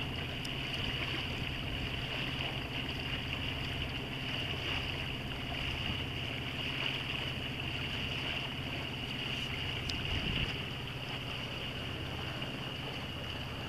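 Old Yanmar inboard diesel of a sailboat running steadily under way, a constant low hum.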